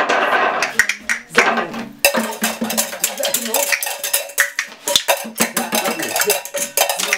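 Improvised percussion: irregular clattering and tapping of hand-held percussion and metal objects. It starts as a few scattered strikes and thickens into a busy rattle about two seconds in.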